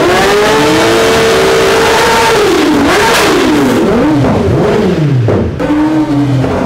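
Two inline-four sport bikes, a Kawasaki ZX-10R and a ZX-25R, both on Akrapovic full-system exhausts, revved high together. The revs climb at the start and hold near the top, then blip up and down several times before dropping back near the end.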